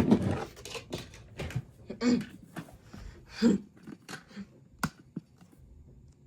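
Scattered clicks, knocks and rustles of small objects being handled and moved on a tabletop, with a loud knock at the start and a sharp click near the end.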